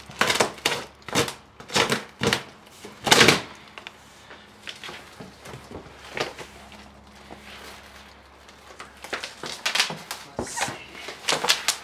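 A knife slitting packing tape on a large cardboard box: a run of short, sharp scrapes and rips over the first few seconds, loudest about three seconds in. This is followed by cardboard flaps being folded open and plastic-wrapped packing foam being handled, giving another cluster of rustling and scraping near the end.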